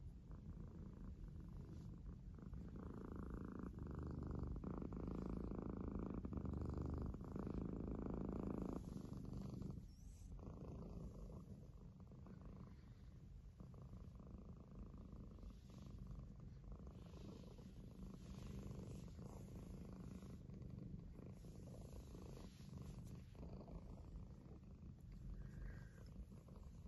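Domestic cat purring steadily, a snore-like purr of contentment, louder for the first nine seconds or so and then softer.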